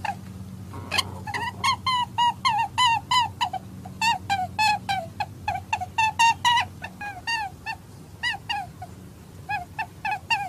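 A long series of short, high chirping calls, about three a second, each rising and falling in pitch, thinning out near the end, over a steady low hum.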